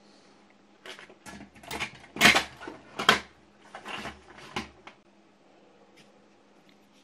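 Tools and objects being handled on a workbench: a run of clatters and knocks, loudest about two and three seconds in, stopping before the end, over a faint steady hum.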